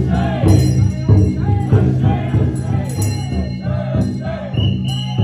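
Festival drum float's big taiko drum beaten in a steady beat, with a group of voices chanting along.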